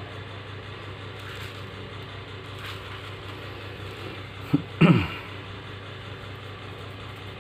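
Smartphone vibration motor buzzing as the phone powers on: a very short buzz about four and a half seconds in, then a slightly longer one that drops in pitch as it stops, over a steady low background hum.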